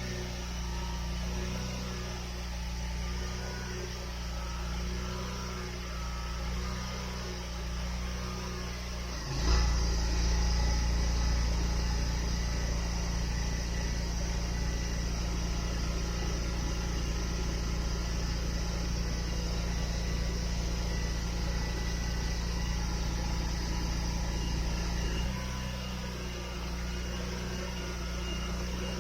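A steady low mechanical hum that jumps suddenly louder about nine seconds in, holds there, and drops back a few seconds before the end.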